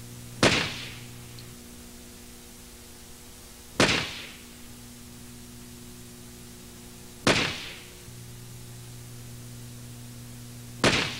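Four single shots from a 1911-style semi-automatic pistol, evenly paced about three and a half seconds apart, each a sharp crack that dies away quickly.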